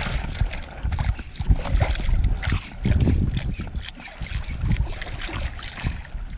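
Wind buffeting the microphone over water slapping and lapping against the hull of a small outrigger boat, with scattered irregular knocks.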